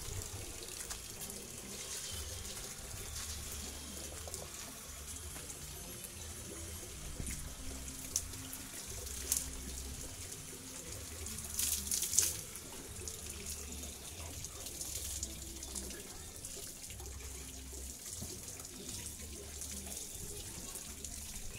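Water running steadily from a garden hose into a tub while a motorcycle is washed by hand, with a few louder splashes about 9 and 12 seconds in.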